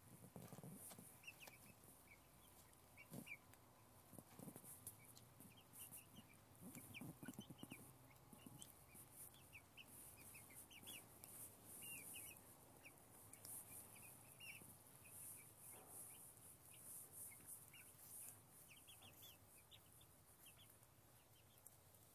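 Chickens, hens and young birds, giving soft, short, high peeping and clucking calls as they forage, many scattered calls throughout.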